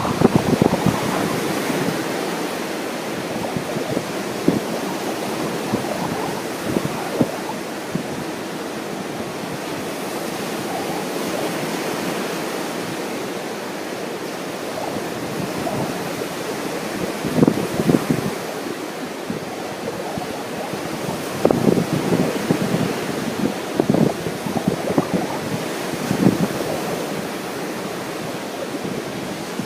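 Ocean surf washing steadily on a beach, with wind buffeting the microphone in gusts about 17 seconds in and again several times in the last third.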